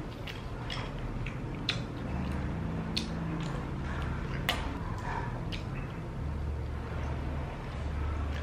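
Eating sounds: chewing and mouth noises with about a dozen scattered sharp clicks, over a low steady hum.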